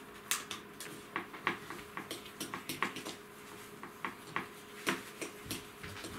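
A utensil stirring creamed butter and sugar in a glass bowl, clinking irregularly against the glass two to four times a second.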